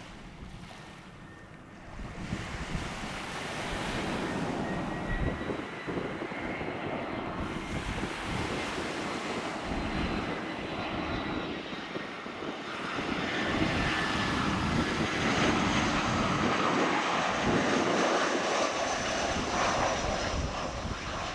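easyJet airliner's jet engines on final approach to landing, the noise growing louder over the first half and staying loud, with a thin high whine that slowly falls in pitch as the aircraft passes.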